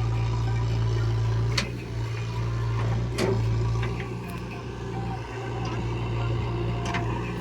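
Heavy diesel engine running steadily with a low hum, with a few sharp knocks about a second and a half and three seconds in.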